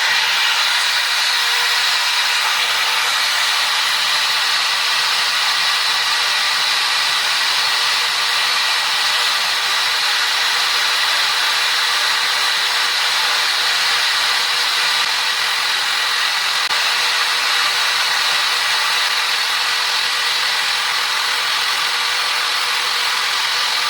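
Power drill running steadily at constant speed, spinning a rusty bolt held against a steel wire brush: an even motor whine under the hiss of the bristles scrubbing rust off the bolt.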